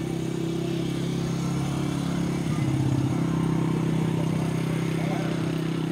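An engine running steadily, a low hum that shifts in pitch briefly about two and a half seconds in.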